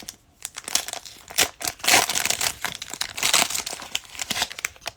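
Foil trading-card pack wrapper crinkling and crackling as it is handled, in dense irregular crackles that are busiest through the middle.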